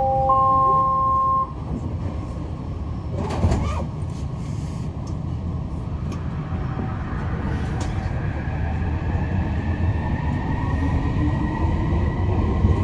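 SkyTrain door chime: three steady tones come in one above the other and stop together about a second and a half in. A thump follows about three seconds in. From about six seconds the train's electric motor whine rises steadily in pitch as it pulls away, over a low running rumble.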